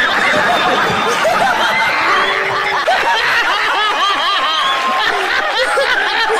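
Loud laughter from many people at once, a man laughing hard among a laughing studio audience, with many voices overlapping.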